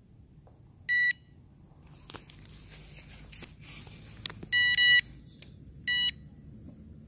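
Electronic fishing bite alarm beeping in short bursts as a fish pulls the line: a short beep about a second in, a longer beep around four and a half seconds, and another short beep about six seconds in. Rustling and clicks of the rod being handled in between.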